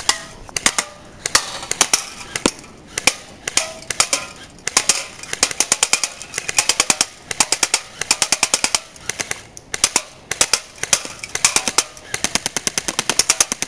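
Airsoft Thompson M1A1 submachine gun firing BBs on full auto, in repeated bursts of rapid clicking shots, some short and some several seconds long.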